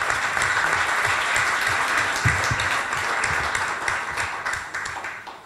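Audience applauding: many people clapping at once, steady, then tapering off near the end.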